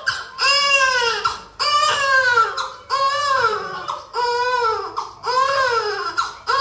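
A voice crying in loud, evenly spaced wails, about six cries of roughly a second each, every one rising and then falling in pitch.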